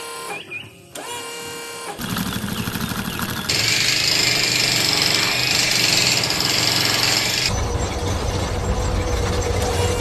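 Cartoon machine sound effects. A few steady tones give way, about two seconds in, to a rapid mechanical rattle like a power drill or jackhammer. A loud hiss rides over the rattle for about four seconds, then drops away, leaving a low rumbling rattle.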